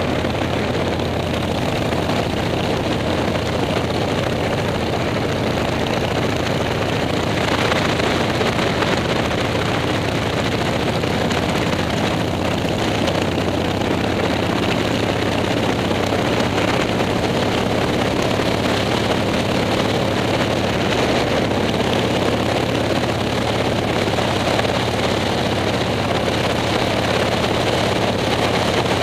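Harley-Davidson Shovelhead V-twin motorcycle engine running steadily while riding, with wind rushing over the microphone.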